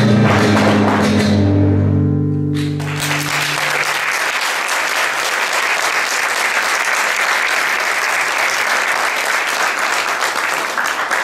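Flamenco music closes on a final held chord, with sharp heel strikes from the dancers' shoes on the wooden stage. About two and a half seconds in, audience applause breaks out and carries on steadily.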